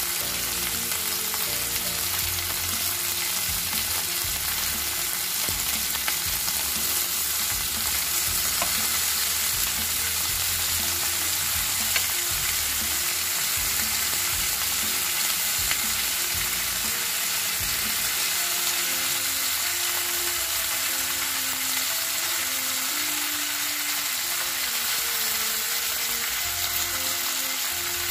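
Whole fish sizzling steadily in a margarine-greased non-stick grill pan, with occasional light scrapes and taps of a spoon spreading spice paste over them.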